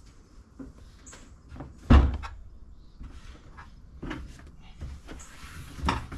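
Gear being set down and shifted in a boat: a few clunks and knocks, the loudest about two seconds in and another near the end.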